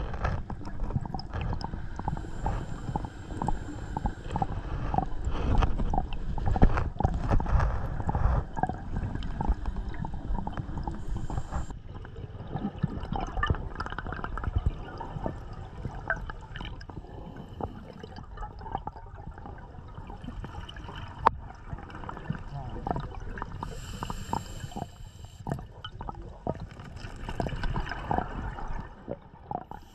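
Scuba diver breathing through a regulator underwater: bubbles gurgling and crackling, with a few hissing inhales.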